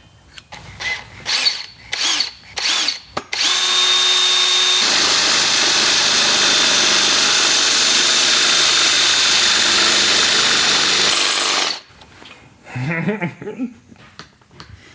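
Electric drill running steadily for about eight seconds, a high whine changing about a second in, with a few short knocks before it starts.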